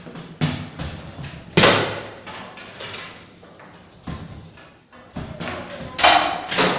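Table football rally: the ball is struck by the rod-mounted figures and knocks around the table in a quick, irregular run of sharp clacks. There is a loud crack about one and a half seconds in and another near the end.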